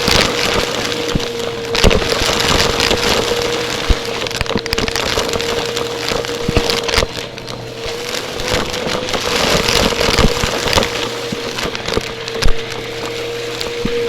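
Vacuum cleaner running, with a steady motor whine over a rushing hiss and scattered sharp clicks and crackles, and a louder knock near the end.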